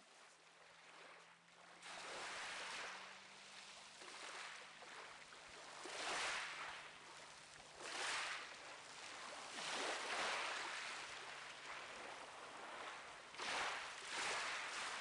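Sea waves washing in, fading in at the start, with a surge of surf every couple of seconds. A faint low steady hum runs underneath.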